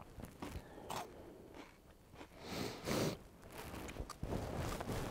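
Crunchy onion-ring snack chips (Funyuns) being bitten and chewed, a few scattered crunches with the loudest cluster about halfway through.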